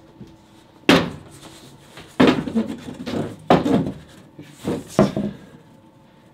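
Wooden knocks and bumps as a pallet-wood board panel is handled and pressed against a small wooden cabinet to try it for fit: about five sharp knocks, the first about a second in and the rest over the next four seconds.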